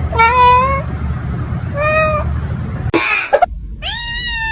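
Domestic cat meowing three times: two short meows, then a longer one that falls in pitch near the end.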